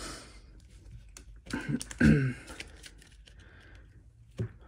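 Pokémon trading cards being gathered and stacked by hand on a tabletop: light clicks and rustles, with a short mumbled voice sound about two seconds in and a sharper tap near the end.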